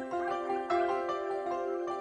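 Background music with sustained notes.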